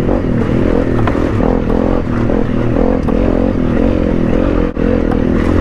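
Honda CRF250 Rally's single-cylinder engine running as the motorcycle is ridden over a rough, bumpy lane, its pitch rising and falling with the throttle. Short knocks and rattles from the bike are heard as it works over the bumps.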